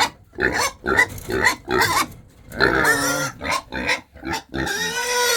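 Domestic pigs grunting at close range: a quick run of short grunts, then longer, drawn-out calls toward the end, the pigs begging for food.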